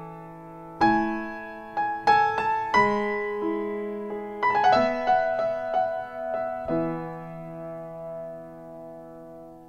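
Slow solo piano music: notes and chords struck a second or so apart and left to ring and fade, with a last chord about two-thirds of the way in dying away.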